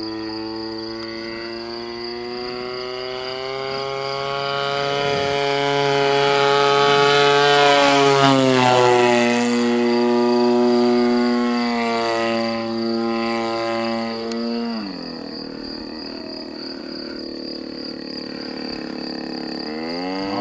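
RCGF 26cc two-stroke gasoline engine of a model biplane flying overhead, its propeller note swelling and falling in pitch as it passes, loudest midway. About three-quarters of the way through the throttle is cut and the note drops steeply to a low, steady tone. Near the end it is opened up again and the note climbs.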